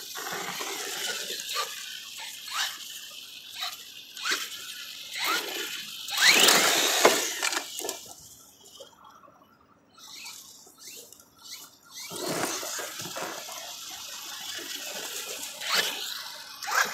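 Electric RC monster truck (CEN Colossus XT) being driven hard on 6S: the motor whines up and down as it accelerates, with the tyres churning dirt. The loudest burst comes about six seconds in, there is a brief lull around nine seconds, and it picks up again after about twelve seconds.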